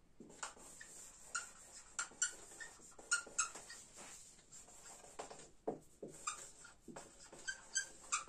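Dry-erase marker squeaking and scratching on a whiteboard as words are written: a run of short, high squeaks and scratches, one per pen stroke, with the sharpest squeaks around two to three and a half seconds in.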